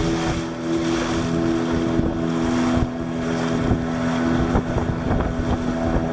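Small wooden fishing boat's motor running steadily under way, with wind on the microphone and water rushing past the hull.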